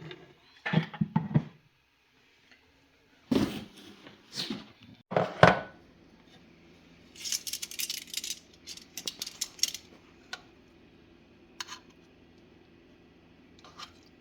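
Dishes and metal cutlery clattering: knocks and clinks of plates, pots and spoons, with a run of quick light clinks in the middle and a few single clicks near the end. A faint steady hum starts about six seconds in.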